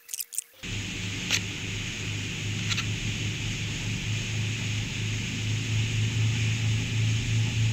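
A boat's engine running steadily under way, with wind and water rushing past. It cuts in abruptly about half a second in, after a brief quiet stretch of faint high chirping.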